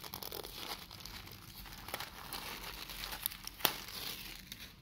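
Clear plastic shrink-wrap crinkling and tearing as it is pulled off a stack of command terminal boards, with many small crackles and one sharp click about three and a half seconds in.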